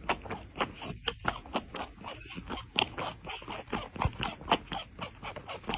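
A cat sucking milk from a baby bottle's nipple: rhythmic wet sucking smacks, about four a second.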